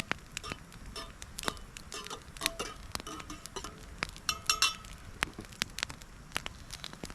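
Wood campfire crackling, with irregular sharp snaps, and a brief metallic clinking about four and a half seconds in.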